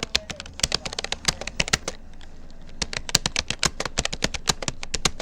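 Typing on a Rapoo computer keyboard: quick, irregular key clicks, several a second, with a short lull about two seconds in.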